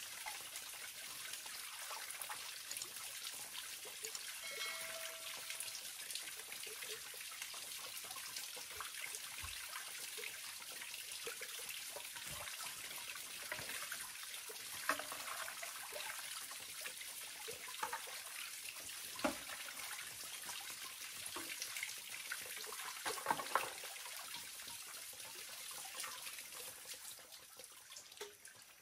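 Water trickling and splashing steadily, with scattered light knocks and clicks and a brief high note about five seconds in.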